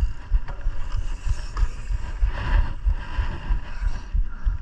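Mountain bike riding down a dirt trail: wind rushing over the microphone, with irregular low thumps and rattling from the bike over rough ground.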